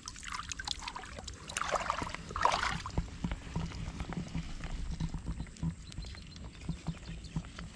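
Water splashing and pouring, with small knocks and scrapes, as mud and weeds are worked through a bamboo scoop basket in shallow lake water. The water surges are strongest in the first three seconds; after that come scattered small knocks.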